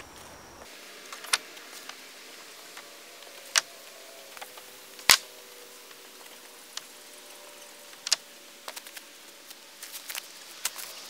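Sharp wooden knocks and clicks of lumber boards being handled and stacked, a few scattered strikes a second or more apart, the loudest about five seconds in.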